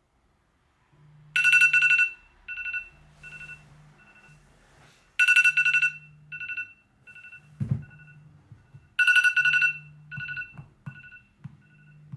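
iPhone alarm ringing: three loud two-pitch tone bursts about four seconds apart, each followed by quieter, fading repeats. A low thump comes about halfway through.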